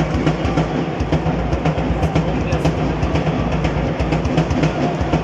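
Football crowd in the stands: supporters chanting, with drumbeats.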